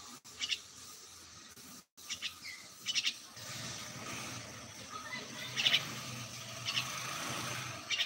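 A young myna giving short bursts of sharp chirps, several times a second or more apart. A faint steady background noise with a low hum comes in about three seconds in.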